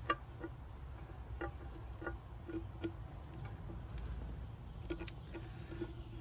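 Irregular light clicks and ticks as an electric cord is worked down through the drain hole of a cement fountain basin, over a low rumble.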